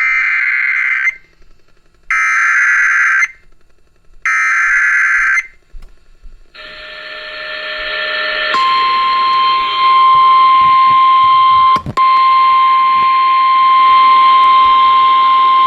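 Emergency Alert System SAME header: three one-second bursts of screechy digital data tones, about two seconds apart. After a rise of radio hiss, the steady single-pitched NOAA Weather Radio alert tone sounds over the static and breaks off briefly once near the end. This signals that a new warning is about to be read.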